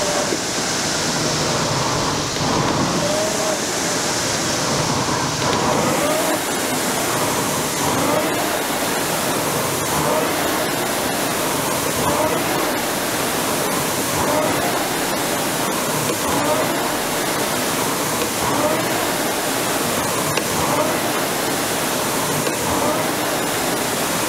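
Concept2 indoor rower's air flywheel whooshing steadily under hard rowing, the rush swelling with each stroke a little over two seconds apart, about 26 strokes a minute.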